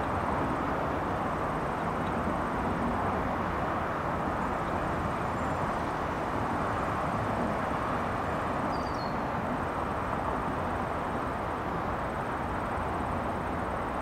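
Steady, continuous noise of highway traffic, passing cars blending into one hum, with a faint bird chirp about nine seconds in.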